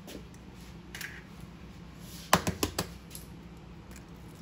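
An egg being cracked against the edge of a mixing bowl: a quick cluster of sharp taps and a crack a little over two seconds in, with faint handling noise around it.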